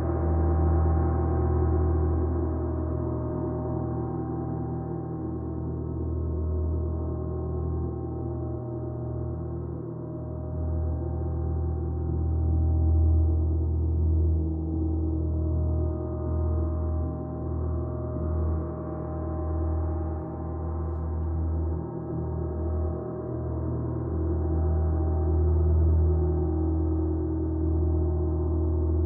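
Gong sounding continuously in a long, sustained wash of many overlapping ringing tones over a deep low hum. It swells and eases gently, with no distinct strikes.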